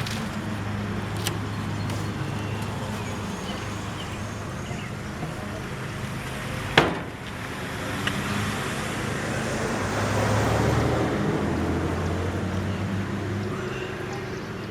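Road traffic going by, with a steady low hum and one vehicle passing louder about ten seconds in. One sharp knock about seven seconds in is the loudest moment.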